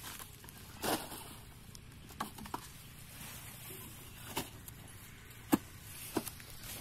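Footsteps on sandy ground and the rustle and scrape of a flat plastic lay-flat irrigation pipe being carried and laid out, with a few irregular sharp knocks. The loudest knock comes about five and a half seconds in.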